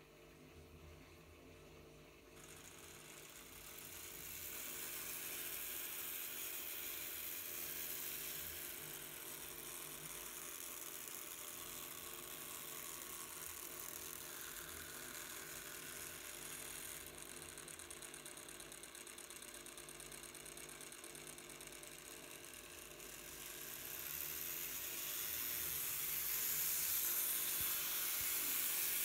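Tomix N-scale Shinkansen 0 series model train, fitted with a DH10C motor decoder, running around a loop of track: a soft high whir and hiss from its small motor and wheels that starts about two seconds in, grows, eases a little past the middle and swells again near the end.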